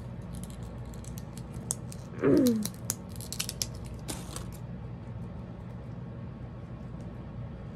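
Small plastic doll parts clicking and scraping as tiny pigtail pieces are pushed onto a mini doll's head, with a brief loud squeak falling in pitch about two seconds in. The clicking stops after about four and a half seconds.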